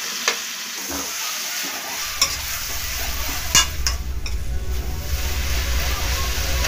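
Sliced onions sizzling in oil in a steel kadai while a spatula stirs them, with a few sharp clicks of the spatula striking the pan, the loudest about three and a half seconds in. A low hum comes in about two seconds in.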